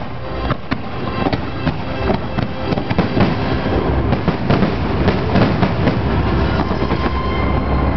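Fireworks finale barrage: a dense run of bangs and crackling bursts in quick succession over a steady low rumble.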